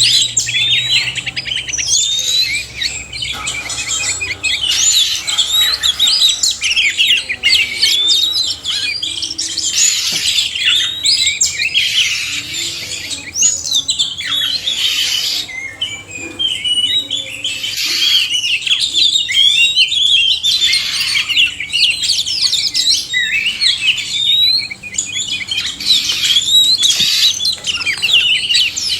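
Male and female Oriental magpie-robins singing together: a dense, unbroken stream of varied whistles and quick chirps from several birds at once.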